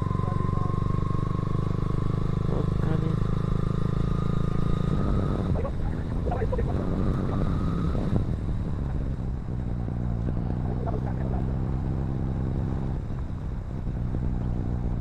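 Motorcycle engine running while riding, with a thin high whine over it for the first five seconds; after that the engine note gets rougher and more uneven.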